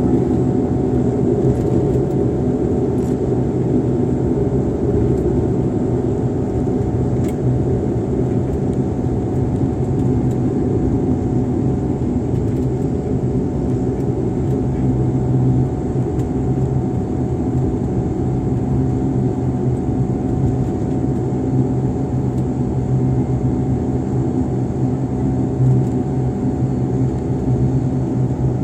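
Steady, loud rumble of an airliner's engines and airframe heard from inside the passenger cabin, with a low hum running under it.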